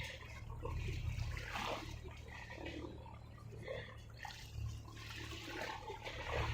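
Ocean waves washing and splashing over a steady low rumble of surf, swelling louder about a second in and again near the end.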